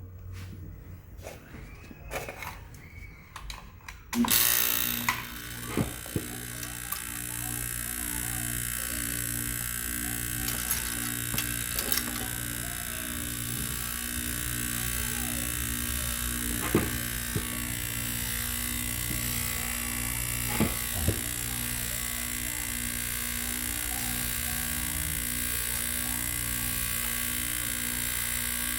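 Refrigeration vacuum pump switching on about four seconds in and running steadily, a motor hum with a high hiss, pulling a vacuum on the refrigerator's sealed refrigerant system. A few sharp clicks sound over it.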